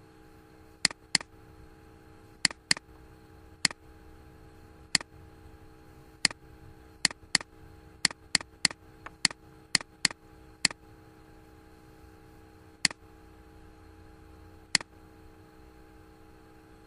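Computer mouse button clicking: about twenty sharp single clicks, some in quick pairs, coming fastest in the middle and sparser toward the end, over a faint steady electrical hum.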